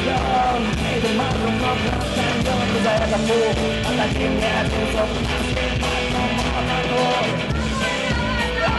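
Rock song with singing and guitar.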